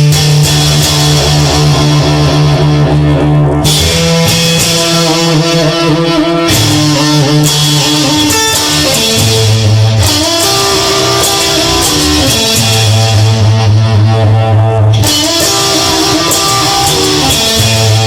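Instrumental rock music: electric guitar playing over sustained bass guitar notes that change every few seconds.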